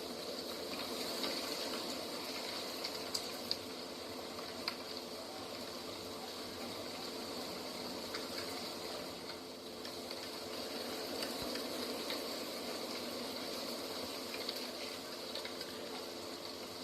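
Steady rush of flowing water, unbroken throughout, with a few faint sharp ticks.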